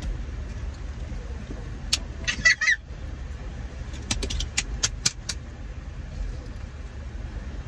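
Steady low rumble of a car cabin, with a short wavering high-pitched squeal about two and a half seconds in and a run of sharp clicks around four to five seconds in.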